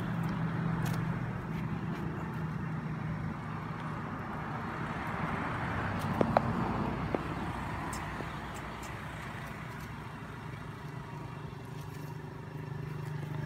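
Motor vehicle engine running with a steady low hum, along with the wider rush of traffic. A few sharp clicks come about halfway through.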